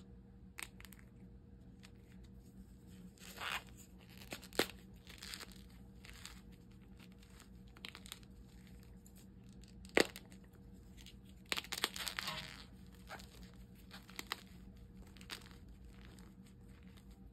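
Reformed gym chalk crumbled and crushed by hand, with scattered soft crackles and crunches, two short bursts of crumbling, and a few sharp snaps as harder pieces break.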